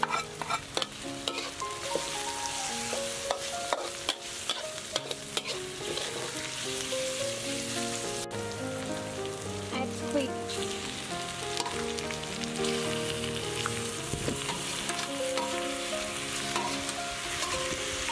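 Chili, garlic and lemongrass sizzling in hot soybean oil in a wok, with a metal spatula clicking and scraping against the wok as it is stirred. About ten seconds in, raw squid goes into the wok and the frying carries on.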